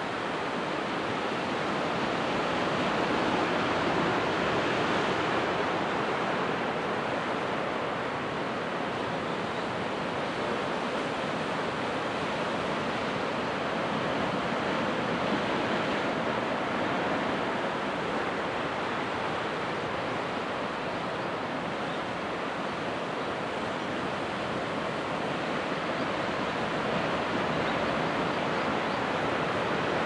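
Gentle ocean surf washing and breaking around rocks on a calm sea: a steady rushing wash that swells and eases slowly.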